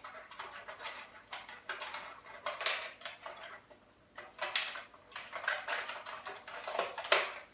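Irregular metallic clinks, taps and scrapes from hand tools working the metal parts of an electric heater as it is dismantled, with louder knocks about two and a half, four and a half and seven seconds in.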